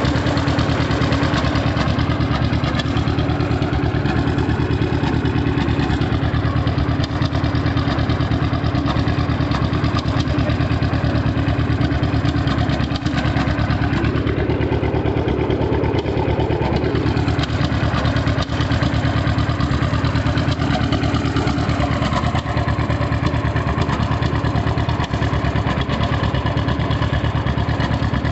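John Deere G tractor's two-cylinder engine running loud and steady with a rapid even beat of exhaust pulses, rising and falling in pitch once about halfway through.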